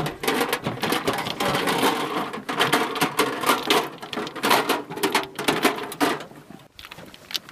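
Clinking and rattling of a belt of linked 40 mm grenade rounds and the metal ammunition cans they are being lifted out of: a dense run of small metallic knocks that dies down near the end.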